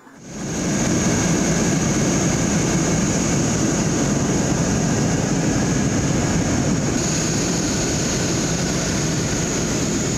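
Ilyushin Il-76 jet transport in flight, heard inside its cargo hold: the steady roar of its four turbofan engines and airflow, with a thin high whine over it. It fades in within the first second.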